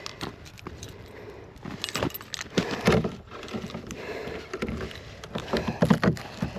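A run of irregular short clinks and knocks, with a few heavier thuds.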